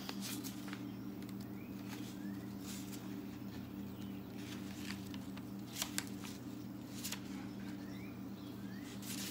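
A steady low hum under light paper rustling and scattered clicks, with two or three short rising bird chirps.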